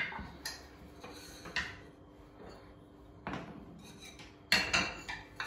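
Kitchen serving dishes and cupboards being handled: a few separate knocks and clinks, then a quicker run of clatter about a second before the end.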